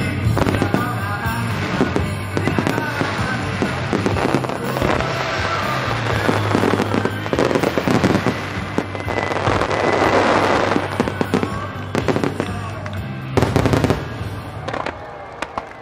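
Aerial fireworks shells bursting in rapid succession over music played for the display, with a dense cluster of loud bursts near the end.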